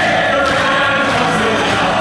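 Musical-theatre cast and chorus singing with orchestral backing, with audience applause beneath during the curtain call.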